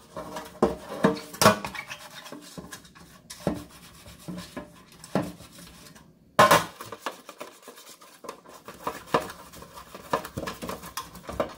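Metal baking pan being handled and greased with olive oil: irregular clatters and knocks of the pan with faint rubbing between them. The loudest knocks come about a second and a half in and again about six seconds in.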